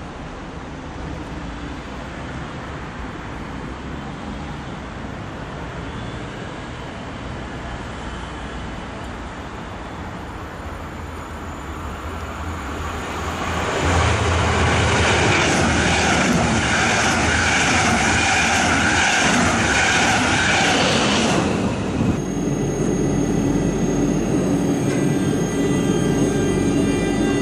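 Double-deck regional train approaching with a low rumble, then passing loudly over a steel arch bridge for about eight seconds from some 13 seconds in. Then a Class 146 electric locomotive moves along the platform, its electric drive giving a whine of several steady tones.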